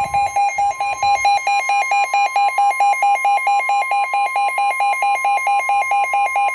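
Midland WR120 weather radio sounding its alert for a flood warning: a steady single alarm tone under rapid pulsing electronic beeps. It cuts off suddenly near the end.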